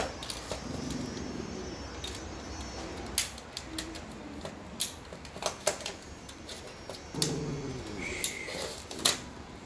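Irregular sharp clicks and taps of cable connectors and plastic parts being handled and plugged in at a modem.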